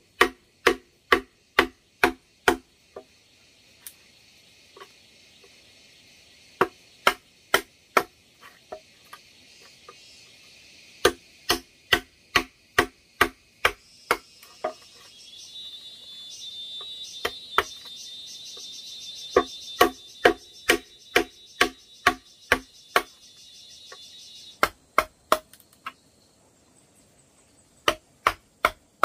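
Chisel being driven into a hollow bamboo pole to cut mortise holes: runs of sharp wooden knocks, about three a second, broken by short pauses. A steady high insect buzz underneath grows louder in the middle and drops away near the end.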